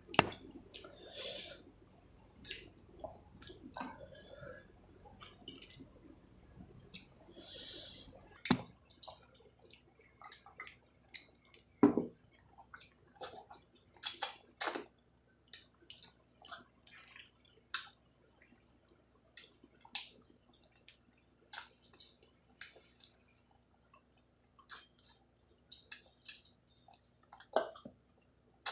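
A person eating a rice meal: soft, wet chewing and irregular lip-smacking clicks, with a couple of louder knocks partway through.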